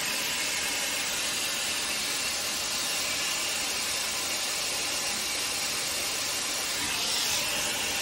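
Shark Airstyler running with its curling-barrel attachment: a steady hiss of blown air as the barrel wraps and dries a section of damp hair.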